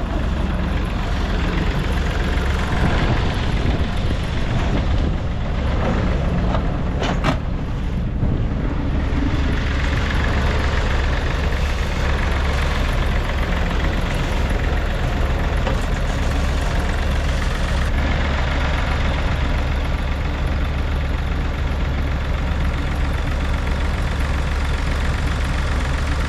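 A heavy engine running steadily at idle, with a couple of sharp knocks about seven seconds in.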